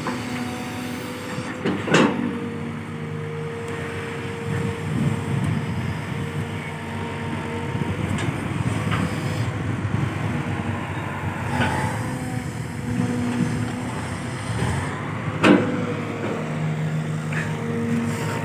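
Kobelco SK210-8 Super XM excavator's diesel engine working under load while digging, with two sharp loud knocks, about two seconds in and again about fifteen seconds in.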